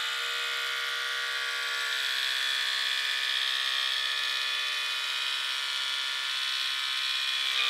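Cordless electric split-end trimmer running with a steady, high motor whine. It spins up at the very beginning and cuts off at the end.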